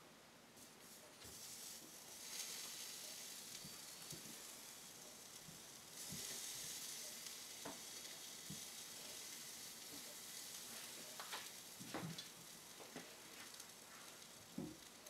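Grouper steaks sizzling on the hot grate of a Simple Living indoor smokeless electric grill, a faint steady hiss that grows louder about six seconds in as a steak is turned. A few light taps of a spatula against the grate.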